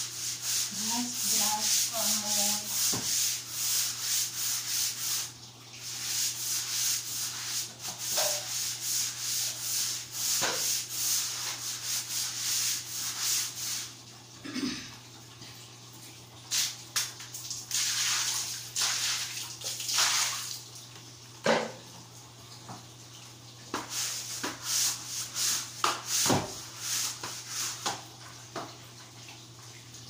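Long-handled stiff brush scrubbing the floor in quick rhythmic strokes, dense for about the first fourteen seconds and then in scattered single strokes. A low steady hum runs underneath.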